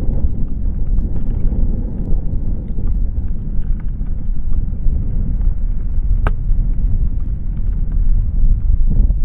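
Wind rumbling over the microphone of a pole-held action camera during a run through deep powder snow, with the rush of skis in the snow. One sharp click about six seconds in.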